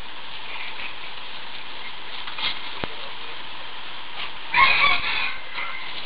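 A short, loud call from a fowl about four and a half seconds in, lasting under a second, over a steady background hiss.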